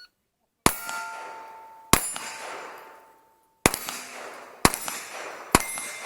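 Five gunshots, each striking a steel target plate that rings with a metallic clang and a long fading tone. The hits come roughly a second apart.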